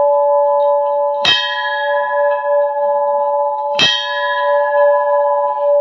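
Hindu temple bell struck twice, about 1.3 and 3.8 seconds in, each strike ringing on into the next with a steady, layered tone.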